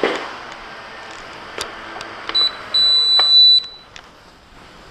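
JJRC X1 quadcopter's small motors whirring on the floor with a few sharp clicks. A loud, high electronic beep sounds, a short one and then one lasting about a second, and the whirr stops soon after.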